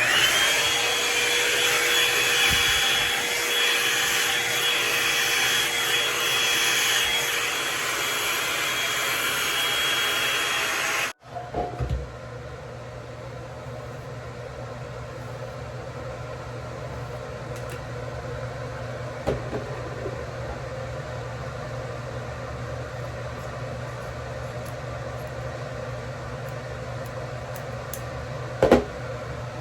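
Revlon One-Step hair dryer brush switched on, its motor whine rising as it spins up and then running steadily with a loud rush of air, cutting off suddenly about eleven seconds in. A quieter steady hum follows, with a single click near the end.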